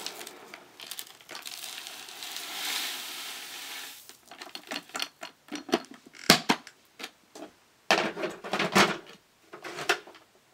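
A Hoover WindTunnel bagless vacuum's plastic dust canister being tipped and knocked to empty it, dry debris rattling and pattering out of it. A soft hiss in the first few seconds gives way to a string of sharp knocks and clatters, the loudest about six seconds in.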